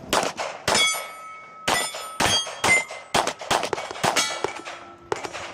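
A rapid string of pistol shots, about a dozen, with steel plate targets ringing as they are hit.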